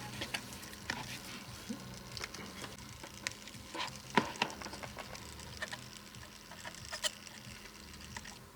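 Faint, irregular light clicks and taps of small parts being handled while a diode is added to a lamp's circuit, over a faint steady low hum.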